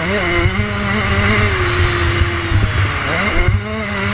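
Dirt bike engine running hard under throttle while riding a dirt track, with a steady rush of noise. The engine note holds, dips about two and a half seconds in, then climbs again.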